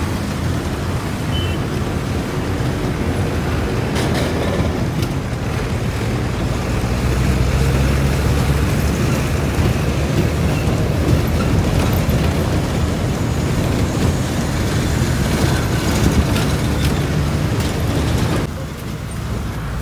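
Steady road noise of a moving vehicle: a low engine drone under tyre and wind hiss. The hiss drops away about eighteen and a half seconds in.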